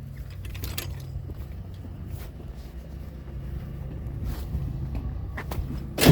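Truck engine running with a steady low rumble, a few faint clicks over it, and one loud thump near the end.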